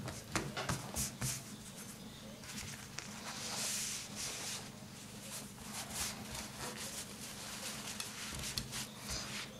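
Cloth rustling and rubbing over a plastic-coated tablecloth as it is smoothed out and folded around a cured duck breast, with small knocks of hands and the plate on the table. A longer scraping hiss comes about halfway through.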